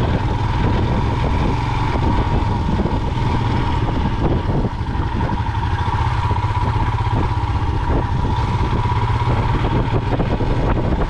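Royal Enfield Himalayan's single-cylinder engine running steadily on the move, with scattered short knocks and rattles as the bike rides over a rough, potholed road.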